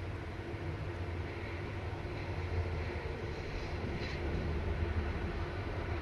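Steady low background rumble like ventilation or machinery, with a faint click about four seconds in.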